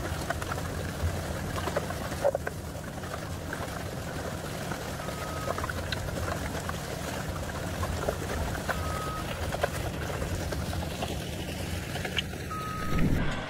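Cat excavator running with a steady low rumble while wet soil slops and spills from its hydraulic attachment. A short high beep sounds three times, a few seconds apart, and a dull low swell rises briefly near the end.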